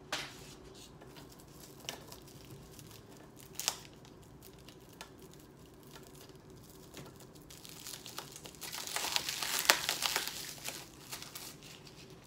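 Packaging crinkling and tearing as a new skateboard deck is unwrapped: faint scattered rustles and clicks, then a dense burst of crinkling about eight seconds in that lasts around three seconds.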